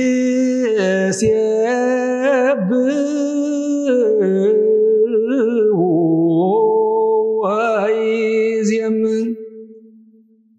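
A man's solo voice chanting Ethiopian Orthodox Ge'ez liturgical chant (wereb): long held notes that slide between pitches, with quick wavering ornaments. The voice fades away about nine seconds in.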